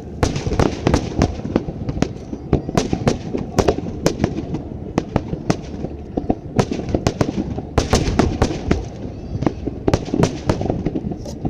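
Aerial fireworks going off in quick, irregular succession, several sharp bangs a second over a steady rumble of further bursts.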